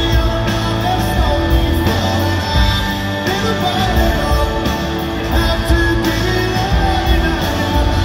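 A live rock band plays electric guitars, bass and drums while a male lead vocalist sings over them.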